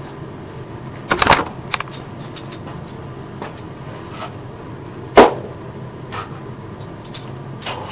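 Irregular sharp knocks and clicks of hard parts being handled or striking each other: a short cluster about a second in, scattered small ticks, and one loudest knock about five seconds in, over a steady low hum.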